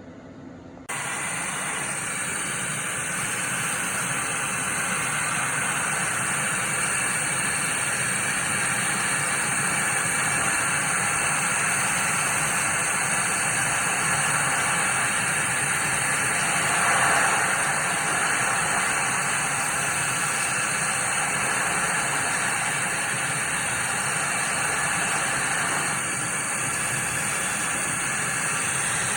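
CO2 laser cutting machine running: a steady airy hiss with a thin high whine, starting abruptly about a second in.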